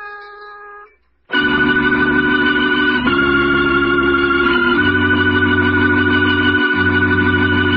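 Organ music: a short held chord, a brief pause, then loud sustained organ chords that shift every second or two, as the episode's closing music.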